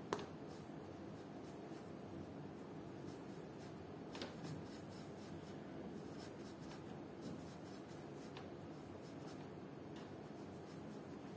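Hands rolling and shaping a piece of yeast bun dough on a countertop board: faint soft rubbing, with a light tap right at the start and another about four seconds in.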